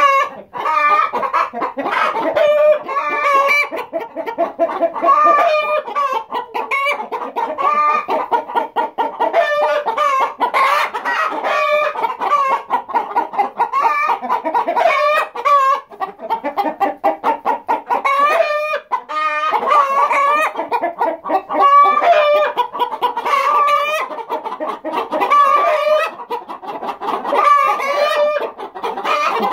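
A flock of hens clucking loudly and without pause, many calls overlapping one another in a constant chorus.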